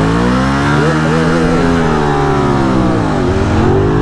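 Motorcycle engine revving up through the rev range, easing off about three seconds in, then pulling up again, with heavy wind rush.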